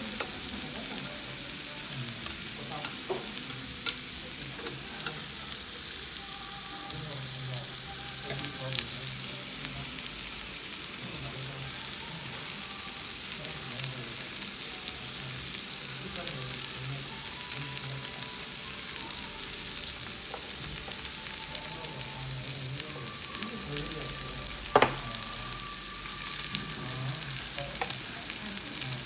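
Slices of raw pork belly sizzling on a hot round tabletop barbecue grill: a steady high hiss of fat frying. A few small clicks run through it, with one sharp click near the end.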